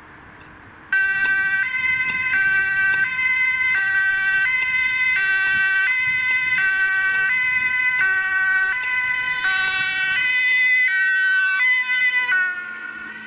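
German two-tone emergency siren (Martinshorn) on an ambulance, switched on suddenly about a second in and alternating between a high and a low tone about every two-thirds of a second. Near the end, as the ambulance passes, the pitch drops and the siren gets quieter.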